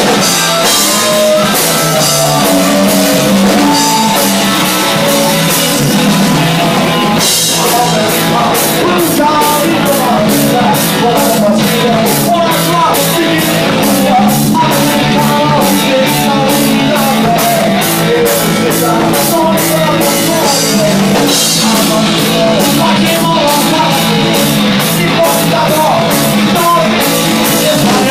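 Rock band playing live: a singer over electric bass, guitar and a drum kit, loud throughout. About seven seconds in the drums pick up a fast, steady cymbal beat.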